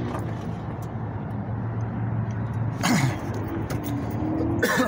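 1989 Chevrolet Camaro RS engine idling steadily with the hood up, a low even hum. Two brief sharp noises cut in over it, about three seconds in and again near the end.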